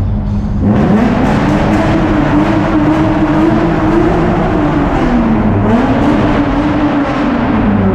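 Car engine revving hard inside a road tunnel: its note climbs about half a second in, holds high, dips briefly about two thirds of the way through, rises again, then drops near the end.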